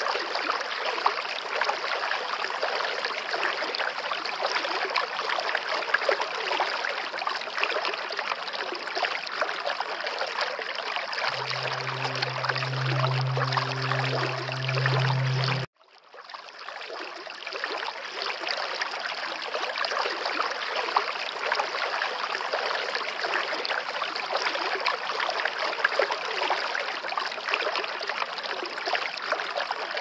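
Steady running water, like a trickling stream. A low hum joins it for a few seconds near the middle; then the sound cuts out suddenly and fades back in over about two seconds.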